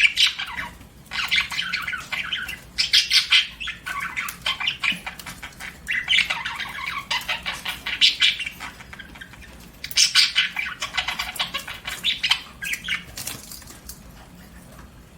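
Budgerigar chirping and chattering in repeated bursts a second or two long with short pauses between them, dying away near the end.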